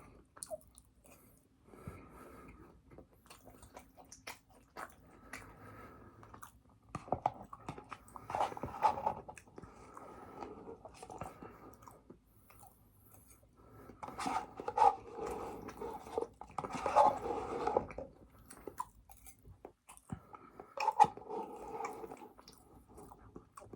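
A person chewing food close to the microphone, with many small mouth clicks and several louder spells of chewing.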